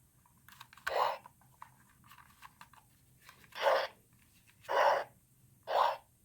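Power Rangers Beast-X Morpher toy playing short whooshing sound effects, four in all, with faint plastic clicks from handling between them.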